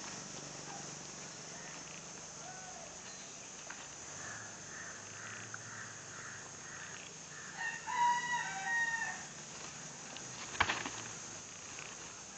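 A rooster crows once, about eight seconds in, for about a second and a half. A couple of seconds later comes one sharp knock as the Boer and Ajmeri goats butt heads.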